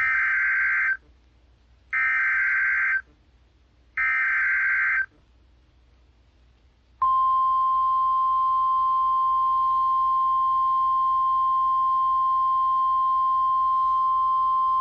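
NOAA Weather Radio alert signal: three one-second bursts of SAME digital header data, two seconds apart. After a short pause, the steady single-pitch 1050 Hz warning alarm tone starts about seven seconds in and keeps sounding. The signal heralds a severe thunderstorm warning.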